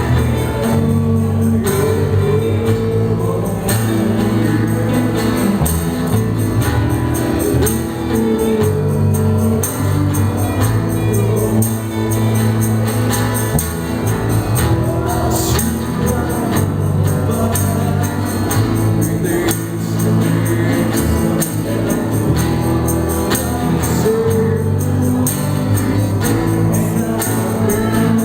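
Acoustic pop-rock band playing live, with cajón percussion keeping the beat under the chords and singing.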